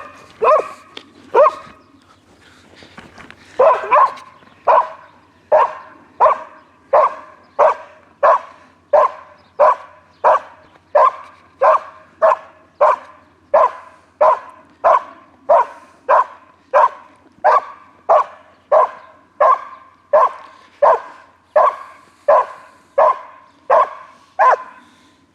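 Foxhound barking over and over: a few barks, a short pause, then a long, steady run of about one bark a second.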